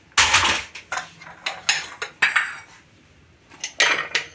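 Dishes clattering as salad is served: an aluminium pan and plates handled on a stone counter, in a run of short, irregular scrapes and knocks.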